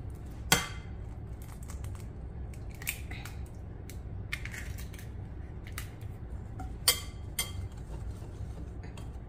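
An egg cracked with a sharp tap against the rim of a glass mixing bowl about half a second in, then a wire whisk clinking against the glass as the eggs are stirred into dry cake mix, with a few more sharp taps, the loudest about seven seconds in.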